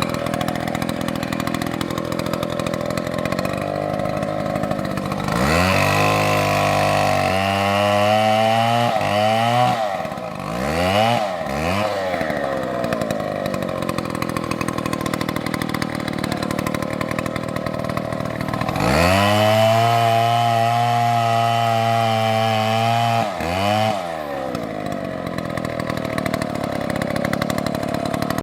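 Two-stroke chainsaw running, its engine revving up and down several times and held at high revs for stretches of a few seconds.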